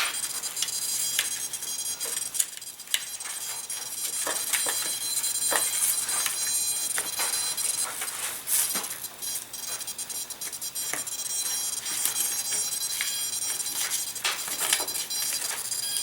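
Scattered light clicks and taps of small parts and wires being handled, over a steady high-pitched whine.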